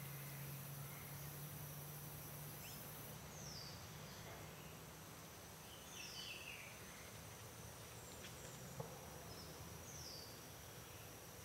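Faint forest ambience: a short, high call falling in pitch repeats a few times, with a brief chirping about halfway and a faint steady low hum. A single sharp click stands out near the end.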